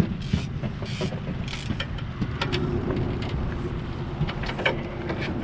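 Fishing boat's motor running steadily with wind buffeting the microphone. A scatter of sharp clicks and a few short hisses come over it.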